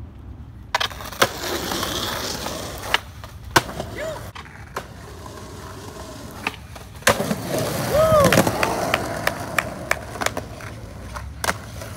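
Skateboard wheels rolling on concrete, broken by several sharp clacks of the board popping, striking a ledge and landing. The rolling is loudest about eight seconds in.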